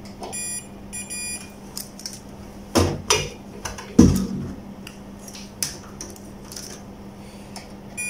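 Two short beeps from a Fluke digital multimeter set to continuity, in the first second or so, as the probe briefly makes contact through the power cable: the beep is the meter's sign of a closed path. Then a few knocks and clicks of the test probes and the plug being handled.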